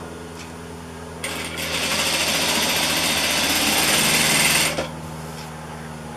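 Electric sewing machine stitching a strip of fabric in one continuous run of about three and a half seconds, starting about a second in and stopping near the end. A steady low hum lies underneath throughout.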